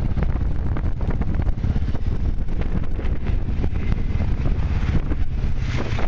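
ATV riding over rough ground: the engine runs under heavy wind buffeting on the microphone, with scattered knocks.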